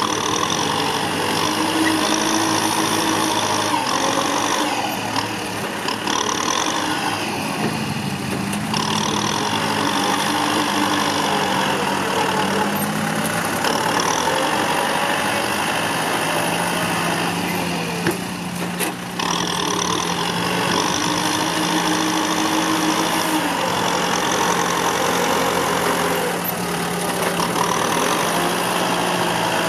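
Kubota farm tractor's diesel engine working under load while its front blade pushes dirt; the engine note rises and falls every few seconds.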